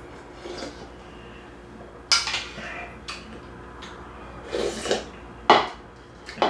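Metal spoon clinking and scraping against a white ceramic soup bowl while soup is eaten, a handful of short sharp clinks, the loudest a little past halfway, with the bowl set down on the table.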